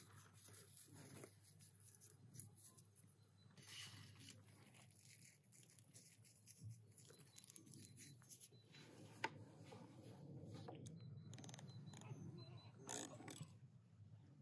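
Near silence: faint outdoor room tone with a few scattered soft rustles and clicks.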